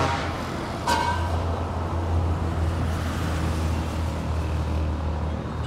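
Steady rumble of passing road traffic, with a short higher tone about a second in.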